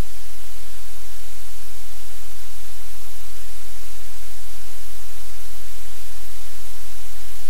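Loud, steady hiss like white noise or static, even from low to high pitch, with no other sound standing out.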